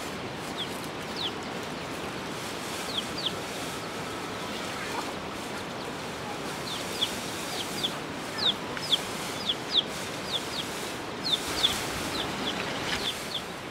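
Birds chirping: short, high notes, each dropping in pitch, repeated in quick runs that grow busier in the second half, over a steady hiss.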